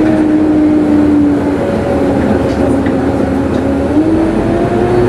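Inside a moving ADL Enviro 200MMC single-deck bus: the engine and driveline run with a steady whine that drops in pitch about a second and a half in and climbs again near the end, over a continuous rumble.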